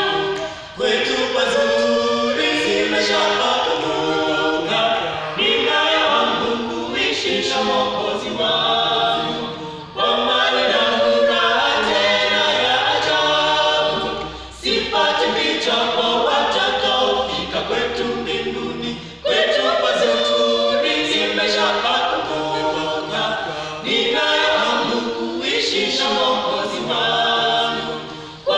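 Small mixed group of men's and women's voices singing a cappella in harmony, in phrases of about five seconds with short breaks between.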